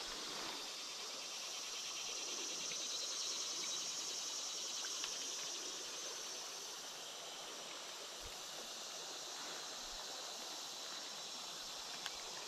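A steady chorus of insects buzzing high-pitched, a little louder for the first few seconds, over the soft rush of the shallow river.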